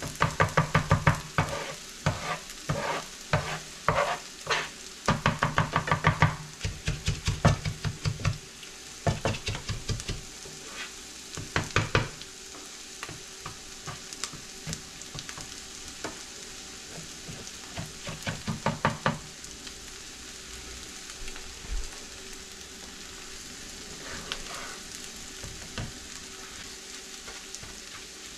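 Scrambled eggs and diced potatoes sizzling in a nonstick frying pan while a plastic spatula scrapes and chops through the eggs in quick runs of strokes. The strokes are busiest in the first eight seconds, come again around ten to twelve seconds and near nineteen seconds in, then give way to a steady sizzle with only an odd scrape.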